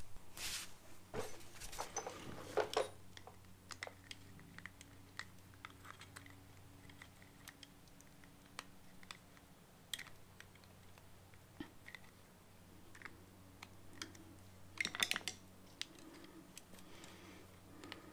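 Small plastic clicks and scrapes from handling a leaf blower's fuel cap, its gasket being worked back into place with a pick, with bursts of louder clicking about a second or two in and again around fifteen seconds. A faint low hum runs underneath.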